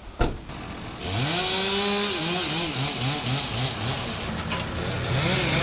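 Chainsaw revving up about a second in and cutting, its pitch rising and dipping again and again as the throttle is worked. A short knock comes just before.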